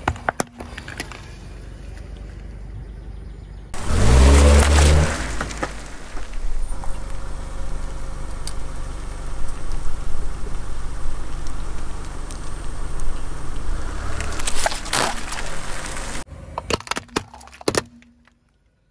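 A car tyre rolling slowly over plastic and rubber toys and crushing them: sharp plastic cracks and crunches over the car's steady low rumble. About four seconds in there is a loud, low, rising groan, and more cracks come near the end.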